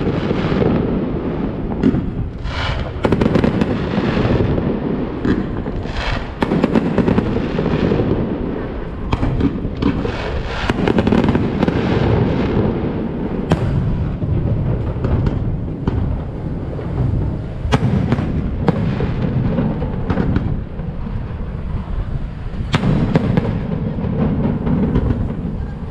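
Fireworks display: aerial shells bursting one after another, many sharp bangs over a steady low background noise.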